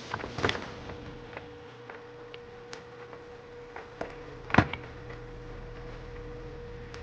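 A few sharp clicks and knocks of tools and parts being handled at a repair bench, the loudest about four and a half seconds in, over a steady electrical hum.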